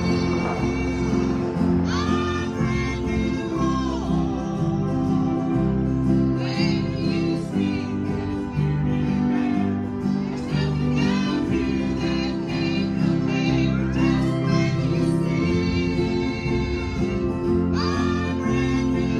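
Live gospel song: women's and a man's voices singing together into microphones over acoustic and electric guitars and keyboard, amplified through a PA speaker.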